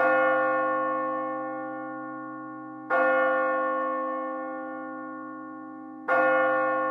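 A church bell tolling three slow strokes about three seconds apart, each struck sharply and ringing on as it slowly dies away.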